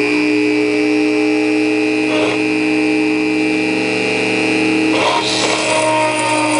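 Dremel rotary tool running in a small drill press, a steady high whine, as a 7/64-inch bit drills into a diecast metal box. Short scratchy bursts about two seconds in and again around five seconds in as the bit cuts the metal.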